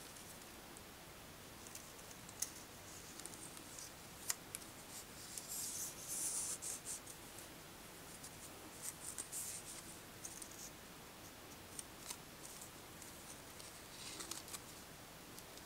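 Palm leaf strips rustling and crackling faintly as gloved hands bend them and slide them through a fold. The rustling comes in irregular spurts, with a few sharp ticks.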